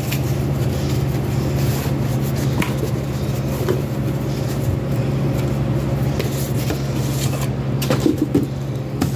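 A steady low hum, with a few light clicks and rustles of plastic card slabs and foam wrap being handled.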